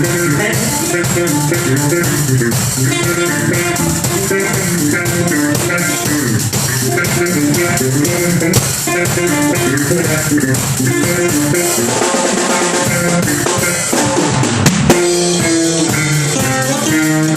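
Live band rehearsing an upbeat number: drum kit, electric bass and Brazilian viola (ten-string guitar) play together in a steady groove. The sound thins out for a couple of seconds about twelve seconds in, then comes back in full.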